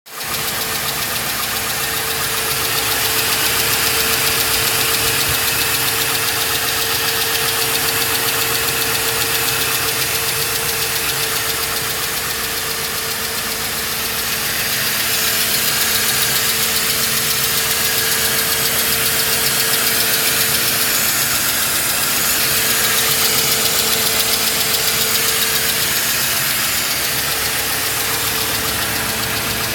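Mercedes-Benz W211 E200 Kompressor's supercharged four-cylinder engine running cold, with a steady tone over the engine noise. This is a strange noise, of unknown cause, that is present only while the engine is cold and goes away once it has run for more than five minutes.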